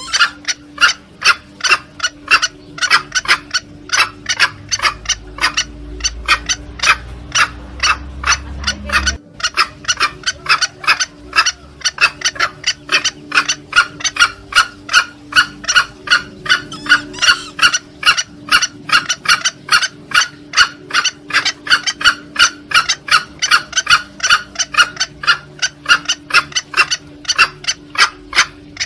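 Green junglefowl lure call: short, sharp notes repeated rapidly, about three a second, with a brief break about nine seconds in.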